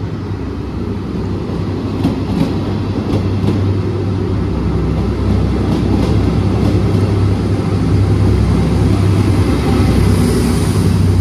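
Passenger train running, heard from on board: a steady low rumble and hum that grows louder as the train gathers speed, with a few faint clicks.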